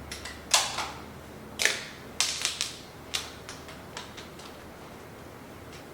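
A series of sharp clicks and short plastic crackles from PC parts being handled, about a dozen in irregular clusters, the loudest near the start and around the middle.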